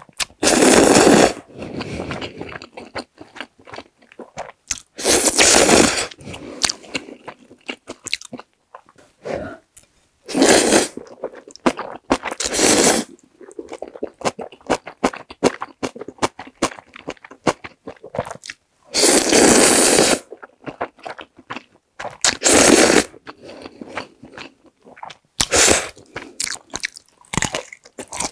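A person eating instant jjajang (black-bean-sauce) noodles: about seven loud slurps of noodles, each lasting up to a second or so, with wet chewing and smacking between them.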